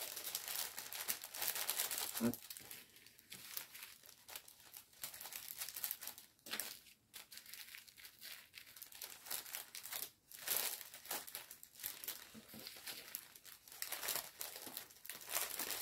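Plastic packaging crinkling and rustling in irregular crackles as the small bags of diamond-painting drills are handled and packed back into the kit.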